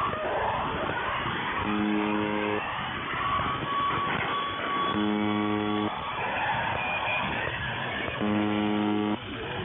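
Harsh electronic noise music heard over shortwave radio, a dense rough wash with no highs. Three times, about three seconds apart, the UVB-76 'Buzzer' station's short, low buzz tone sounds through it.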